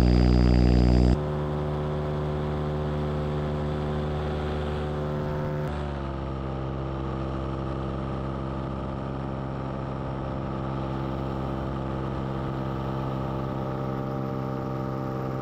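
Paramotor engine and propeller running steadily in flight, at a constant pitch. The sound drops abruptly in level about a second in, and its tone shifts slightly near six seconds.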